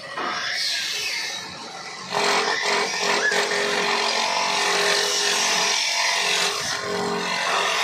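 Wood lathe spinning a long wooden blank while a cutter on a sliding carriage shaves it, a steady rasping hiss over a steady hum. The cutting starts just after the beginning and gets louder about two seconds in.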